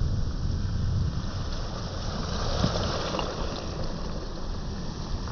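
Wind buffeting the microphone over the wash of sea waves on a beach, with a swell of surf hiss about halfway through.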